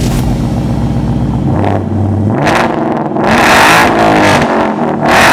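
2017 Ford Mustang GT's 5.0-litre V8 through an AWE Track Edition cat-back exhaust with no mufflers, accelerating hard. After a steady low drone, the revs climb from about two seconds in, loudest around the middle, with a second climb near the end.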